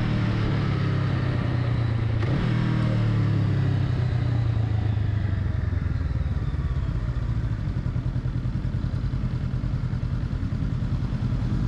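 Honda Rebel 500's parallel-twin engine running steadily, then dropping in revs about halfway through to a low, slow pulsing beat like idle.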